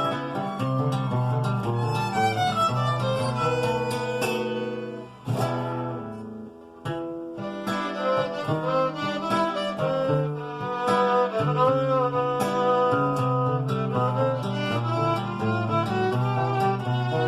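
Instrumental break of a song: guitar picking with a violin melody over it, thinning out briefly about a third of the way through before the full accompaniment returns.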